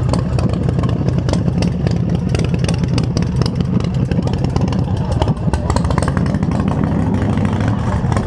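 Custom chopper motorcycle's engine running loud at low speed as it rides slowly past, with a dense low rumble of rapid exhaust pulses.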